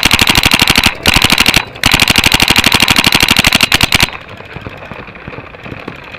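Paintball marker firing in rapid strings of about a dozen shots a second, three strings over the first four seconds with brief breaks between them. After that only fainter, scattered shots.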